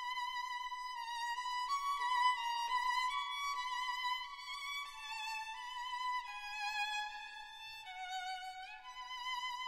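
Background music: a solo violin plays a slow melody with vibrato, its notes stepping gradually downward, then sliding up near the end.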